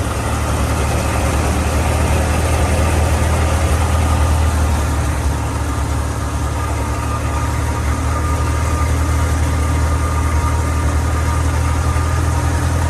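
Tractor engine running steadily at a constant speed while driving a wheat thresher machine, a low drone with the thresher's dense mechanical rush over it.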